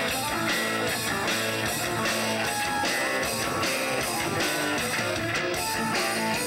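Heavy metal band playing live, the electric guitar to the fore over a steady drum beat.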